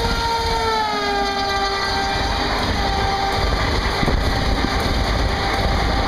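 A WAP7 electric locomotive's horn sounds as it passes close by, its pitch dropping as the locomotive goes by and fading over the next few seconds. Then comes the steady wheel-and-rail noise of the passenger coaches running past at speed.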